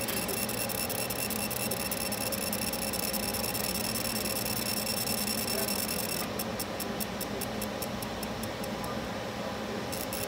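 Laser engraving machine running while it etches a 1911 pistol shroud: a steady machine hum with a high whine, which about six seconds in gives way to a fast, even high ticking, about five a second.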